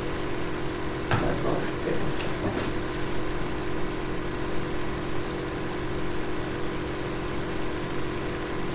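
Steady machine-like hum, with a few faint short sounds in the first few seconds.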